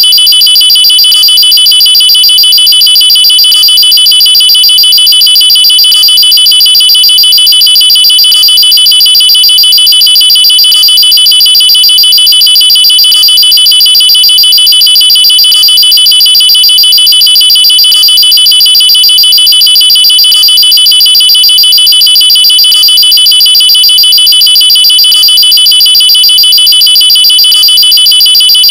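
Loud electronic alarm sounding continuously: a high-pitched, rapidly pulsing tone that holds steady in pitch throughout, with no rise and fall.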